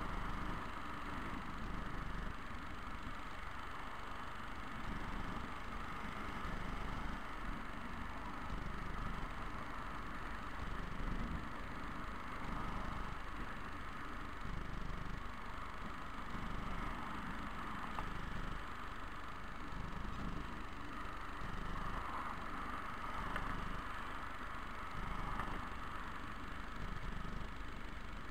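Scooter running steadily along a road, with a constant hum and a low rumble that swells and fades every second or two.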